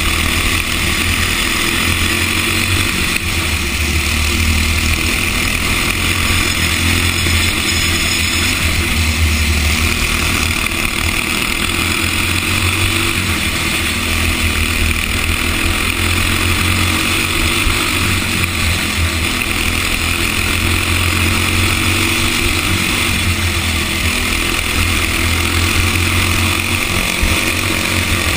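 Racing go-kart engine running at speed, heard from an onboard camera on the kart with wind rushing over the microphone; a steady, loud drone.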